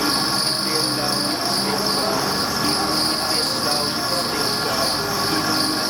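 Background music intro: held, shifting notes under a steady high-pitched chirring layer that swells and fades slowly.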